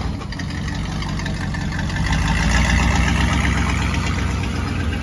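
1982 Dodge W150's 318 V8 engine running as the truck moves off, growing louder about two seconds in and easing toward the end.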